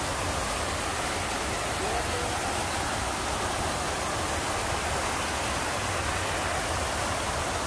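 Fountain water jets splashing steadily back into the pool, a constant even rush of falling water.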